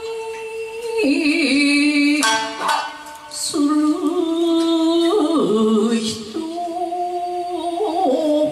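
A woman singing a Japanese popular song to her own shamisen, holding long notes that bend and waver, with sharp shamisen plucks struck between the phrases.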